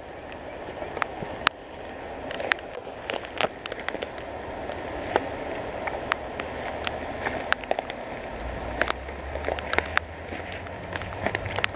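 Walking with a handheld camera through woods littered with fallen trees: irregular sharp clicks and snaps over a steady outdoor rush, with a low rumble joining about eight and a half seconds in.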